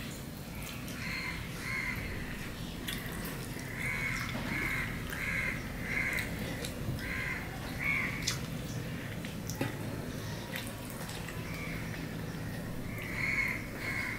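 A crow cawing repeatedly, a run of short harsh caws about one to two a second that stops around two-thirds of the way through, then a few more caws near the end. Under it, chewing and small clicks of eating by hand off a steel plate.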